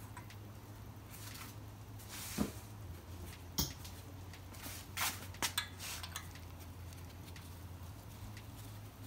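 Metal hand tools and engine parts being handled, giving about five sharp metallic clinks and knocks: one two and a half seconds in, one near three and a half seconds, and a quick cluster around five seconds. A steady low hum runs underneath.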